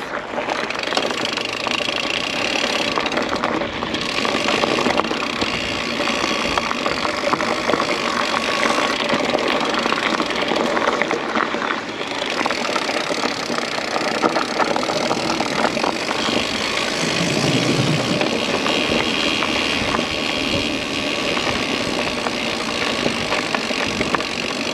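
Steady rushing noise of riding a mountain e-bike on a trail: wind on the microphone and the tyres rolling over the ground.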